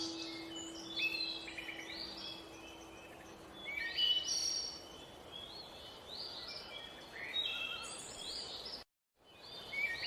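Many small birds chirping and singing in quick, overlapping calls, with one held music note fading out over the first few seconds. The sound drops out for a split second near the end.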